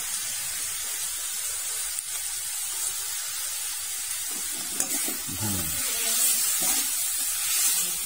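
Chopped bird meat frying in hot oil and curry paste in a wok, a steady sizzle that swells somewhat in the second half.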